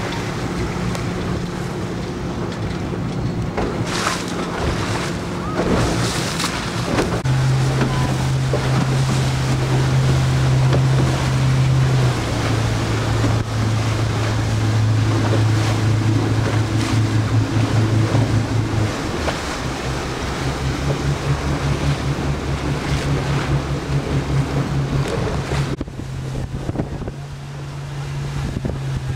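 A boat's motor runs steadily, its hum shifting to a new pitch several times, over wind on the microphone and water noise.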